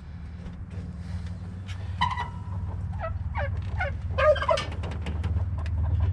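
A turkey gobbling: a quick run of pitched, rattling calls through the middle, loudest near its end, over a steady low hum.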